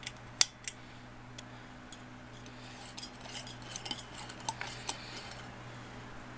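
A few sharp clicks, then a run of light metallic clicks and scrapes as a light bulb is handled and its screw base is worked in a lamp socket.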